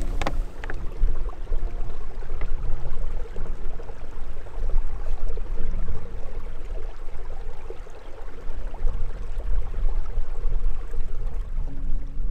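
Shallow mountain stream running over rocks, with a plastic water bottle held under the surface and filling, water gurgling into it. A few short plastic clicks near the start.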